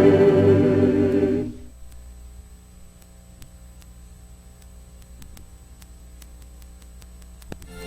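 Sung trailer music, with voices held on sustained notes, ends about a second and a half in. Then a low steady hum with faint ticks from the VHS tape runs until music starts again at the very end.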